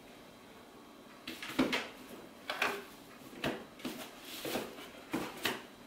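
About six short knocks, roughly a second apart, over a quiet steady background.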